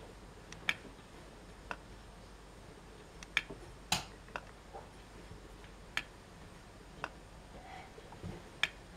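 Sharp little plastic clicks and ticks, irregular and about one a second, from a homemade clear-plastic solar mini Stirling engine. The loudest click comes about four seconds in.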